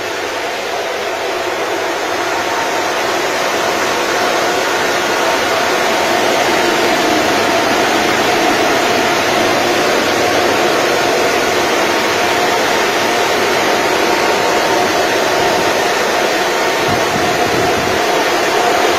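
Cooling fans of a room full of Antminer ASIC cryptocurrency miners and the air rushing through their ducting: a loud, steady rushing with a steady whine on top, growing a little louder over the first few seconds.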